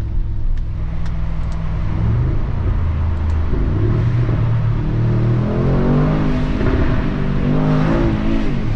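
Brabus 800 twin-turbo 4.0-litre V8 accelerating hard, heard through the open side window and echoing in a tunnel. The engine note climbs twice with a short hold between, then drops near the end as the driver eases off.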